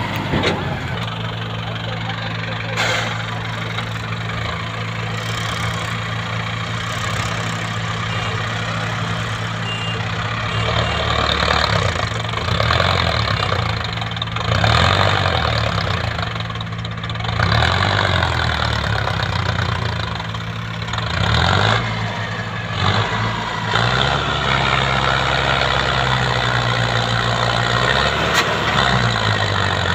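Mahindra Arjun Novo 605 DI tractor's four-cylinder diesel engine running under heavy load as it pulls a loaded trolley through soft dirt. Its engine rises in pitch in several surges, around the middle and again near the end.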